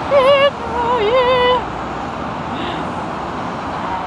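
Steady city street traffic noise from cars, cabs and buses. In the first second and a half a woman's high, drawn-out voice with a wavering pitch rises over it.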